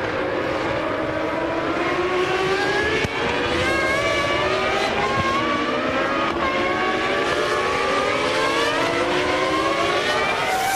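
Formula One car's V10 engine accelerating, its pitch climbing in long rising runs broken by brief drops at gear changes.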